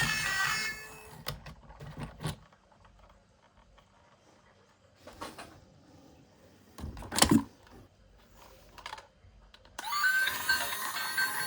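Scattered light clicks and knocks, with a louder knock about seven seconds in. Background music fades out at the start and comes back near the end.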